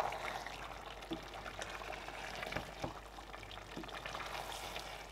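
Wooden spoon stirring thick egusi soup in a pot: wet, soft scraping with a few light knocks of the spoon against the pot.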